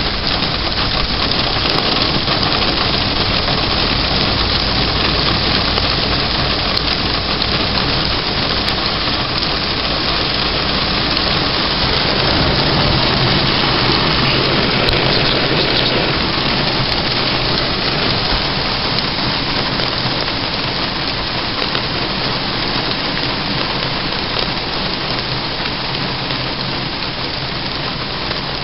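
Heavy thunderstorm rain pouring steadily. A low rumble of thunder swells about halfway through.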